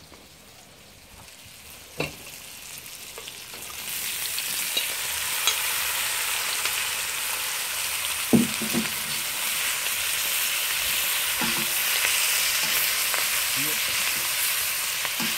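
Lamb pieces sizzling in hot oil in a wok. The sizzle swells about four seconds in as the meat goes into the pan and then runs steadily. A few short knocks come from a metal spoon stirring against the wok.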